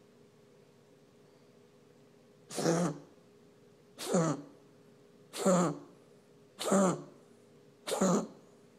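A pet coughing in a repeated spell: five short coughs about a second and a half apart, starting a couple of seconds in.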